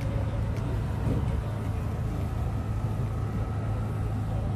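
Outdoor market ambience: a steady low rumble with faint, indistinct voices in the background.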